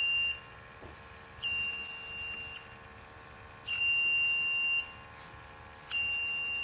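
Handheld pump-suction formaldehyde detector's alarm beeping: long high-pitched beeps, each about a second long, repeating about every two seconds. The formaldehyde reading is above the detector's set alarm point.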